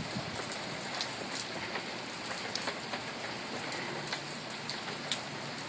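Thunderstorm rain falling steadily, an even hiss with scattered sharp ticks of drops striking close by.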